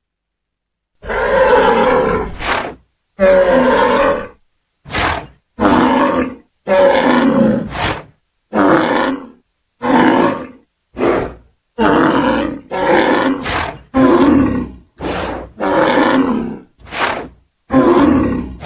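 Rhinoceros calling: a run of about sixteen short, loud calls, roughly one a second, starting about a second in. Each call is separated from the next by a gap of dead silence.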